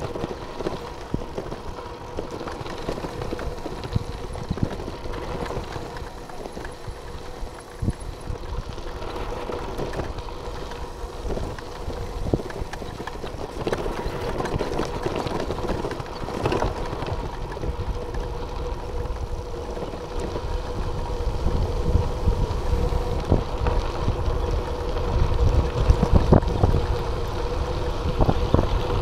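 Bicycle rolling over a gravel mountain track, its tyres crunching and rattling over loose stones in many small clicks. A steady hum runs underneath. Wind buffets the microphone, heavier in the last several seconds.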